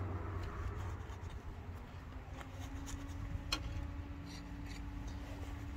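Faint rubbing and small clicks of handling, with one sharper click about three and a half seconds in, over a steady low hum.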